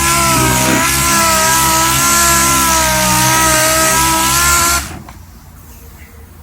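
Background rock music with loud, sustained, wavering tones, cutting off suddenly about five seconds in and leaving only faint background noise.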